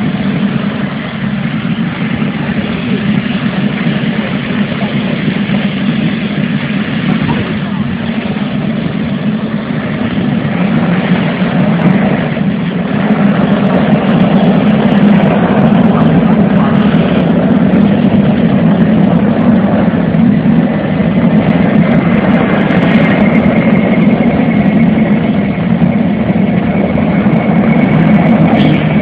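Air ambulance helicopter running on the ground, its engines and rotor making a steady loud drone that grows louder a little before halfway. A thin high whine comes in during the last third.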